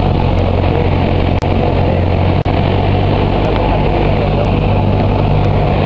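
Cessna 172's piston engine and propeller running in a steady drone, heard inside the cabin. The sound drops out very briefly twice, about one and a half and two and a half seconds in.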